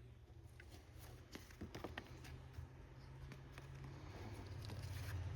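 Faint taps and light scratches of a drawing or painting tool working on a paper card, clustered between about one and two and a half seconds in, over a steady low hum.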